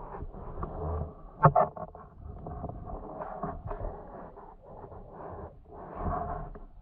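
Muffled underwater noise heard through an action camera's waterproof housing: shifting water and movement sounds, with a sharp double knock about one and a half seconds in.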